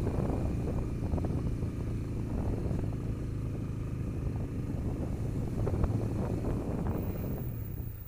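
Motorcycle engine running steadily off the throttle with the clutch engaged while descending a steep hill road, holding the bike back by engine braking.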